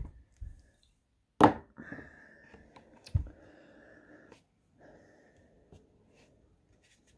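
Objects being handled and set down on a desk. A sharp knock comes about one and a half seconds in and is the loudest sound; a dull thump follows a little later, with faint scraping and rustling in between.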